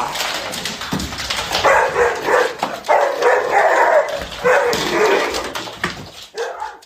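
A dog barking in several short bouts.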